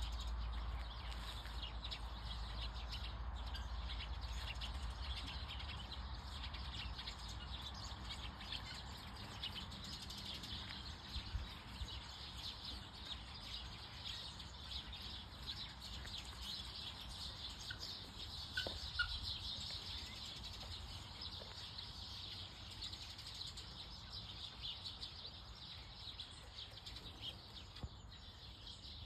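Many small birds chirping and twittering in a continuous background chorus, with a low rumble underneath that is strongest in the first half.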